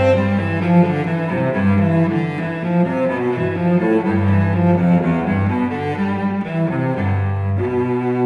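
Instrumental background music: a flowing run of changing notes over a strong, sustained bass line, shifting to a new held chord right at the end.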